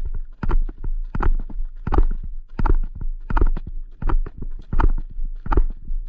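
Horse's hoofbeats on a gravel track in a steady rhythm, a strong beat about every 0.7 s with lighter beats between.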